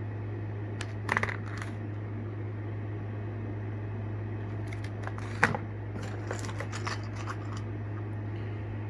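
Plastic lure packaging being handled, with a few crinkles and clicks and one sharper snap near the middle, over a steady low hum.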